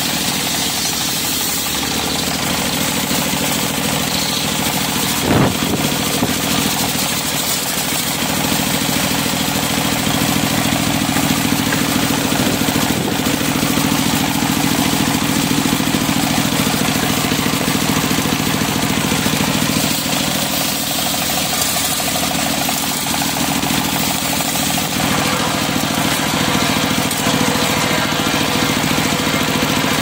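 Engine-driven sawmill circular saw blade running and cutting a teak log: a steady engine drone under the dense hiss of the blade through the wood. A single sharp knock about five seconds in.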